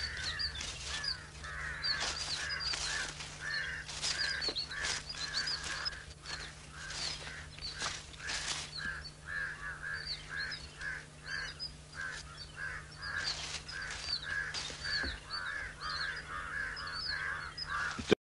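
Many birds calling at once: rapid, repeated chattering calls with short high chirps over them, mixed with brief rustles in dry vegetation. The sound cuts off abruptly near the end.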